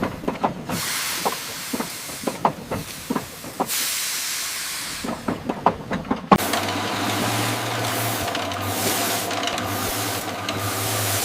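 Early vacuum-cleaning machinery: bursts of hissing with scattered clicks and clatter. About six seconds in comes a sharp click, then a steady motor hum under a continuous hiss.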